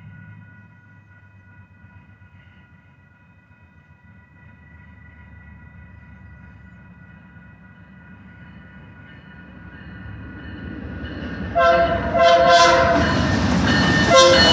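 BNSF Dash 8-40BW locomotive approaching with its Nathan RS3K air horn. After a steady high ringing from the crossing signal and a growing diesel rumble, the horn sounds several short blasts about three-quarters of the way through as the engine draws close and loud.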